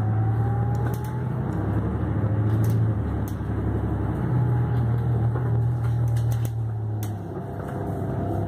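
City transit bus in motion, heard from inside the passenger cabin: a steady low engine drone that swells and eases, with a faint whine rising in pitch over the first second or so and a few short rattles.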